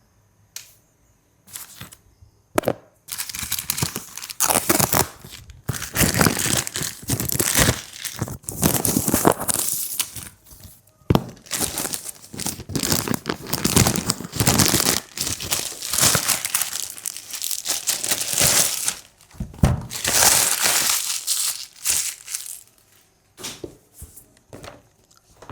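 A delivery parcel's packaging being torn open and crumpled by hand: irregular bursts of ripping and crinkling, after a few scattered clicks in the first couple of seconds.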